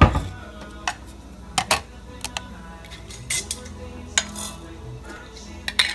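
Hard objects being handled and set down on a kitchen counter, a string of sharp clicks and knocks, among them a black plastic container placed on a digital kitchen scale.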